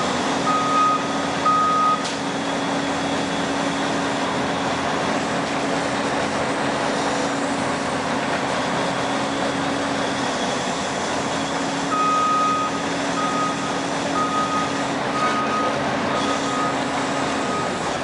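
A heavy construction vehicle's reversing alarm beeping at a steady pace over its running diesel engine. The beeping stops after about two seconds and starts again about two-thirds of the way through.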